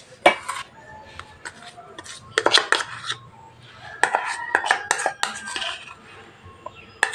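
A metal spoon clinking and scraping against a steel tiffin box and a bowl as poppy seed paste is scraped into the box, in two clusters of quick taps.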